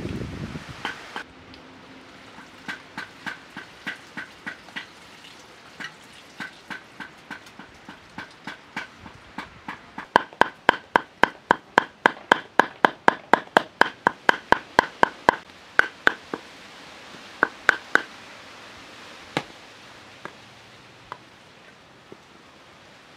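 Knife chopping raw chicken on a wooden cutting board to mince it: scattered chops at first, then a fast run of about three sharp chops a second, the loudest part, which thins out to a few last strokes. Water pouring from a clay jug is heard for about the first second.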